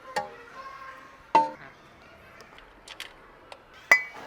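Several sharp metallic clinks with short ringing, the loudest about a second and a half in and near the end, from metal tools and parts being handled during engine timing-chain work.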